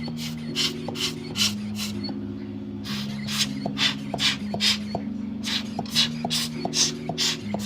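Background music: held chords changing every second or so over a steady hi-hat-like beat of about three strikes a second, which drops out briefly twice.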